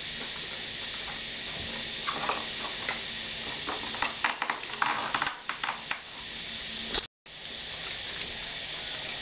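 Small clicks and rattles of white plastic toilet-seat hinge brackets and bolts being handled and fitted together, bunched between about two and six seconds in, over a steady hiss. The sound cuts out completely for a moment about seven seconds in.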